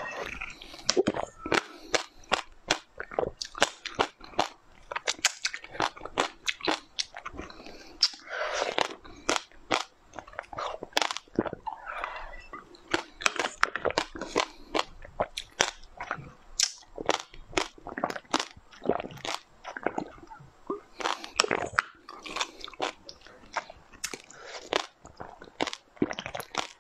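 Close-miked eating sounds: quick wet mouth clicks and smacks, sucking and slurping, as a soft yellow filling is sucked out of plastic test tubes and chewed.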